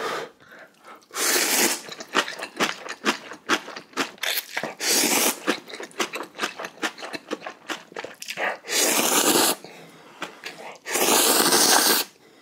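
A person slurping instant ramen noodles with four long, loud slurps, and wet chewing and smacking sounds between them.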